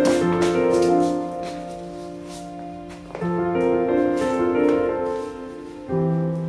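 Background music: a piano playing slow, held chords, changing chord about every three seconds.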